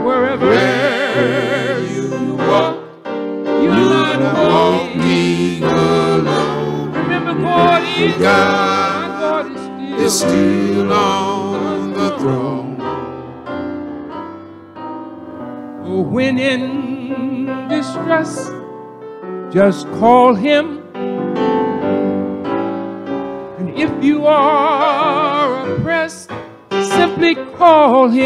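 Male gospel quartet singing in close harmony, held notes with a wide vibrato, in long phrases with short breaths between them.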